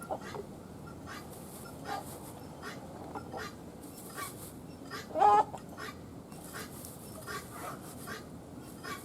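A hen clucks, with one loud call about five seconds in, over scattered faint peeping of newly hatched chicks.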